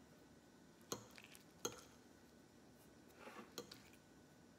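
Faint clinks of a metal fork against a dinner plate as it cuts into a breaded chicken patty: two sharp clinks about a second in, then a short soft scrape ending in another light clink near the three-and-a-half-second mark.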